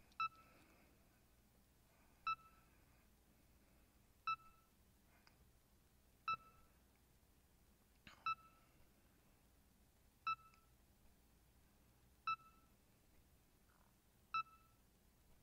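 BrailleSense 6 braille notetaker's progress beep, a short high beep repeating about every two seconds, eight times in all, like a little heart monitor. It signals that the device is still busy searching the internet.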